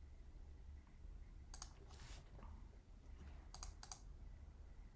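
Faint clicking from working a computer while settings are picked in a menu: two quick clicks about one and a half seconds in, another around two seconds, and a close pair near four seconds. Under them runs a low steady hum.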